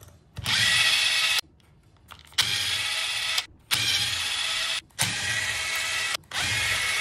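Cordless electric screwdriver whirring in five separate runs of about a second each, backing screws out of a metal case.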